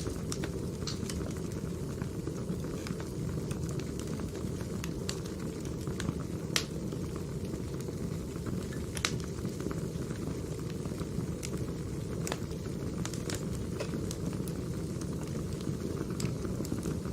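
Wood fire burning: a steady low rumble with irregular sharp crackles and snaps, a few louder pops among them.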